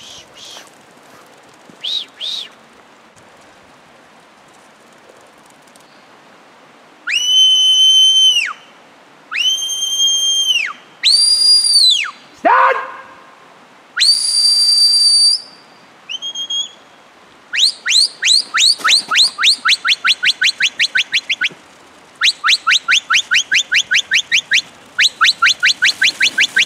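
Shepherd's whistled commands to a working Border Collie: several long held whistles, some rising and falling, then long runs of fast repeated short whistles.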